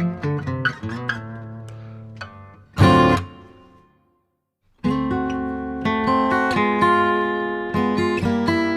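Background music: acoustic guitar picking and strumming, with a loud strum about three seconds in that dies away, a brief full silence, then the guitar music starts again.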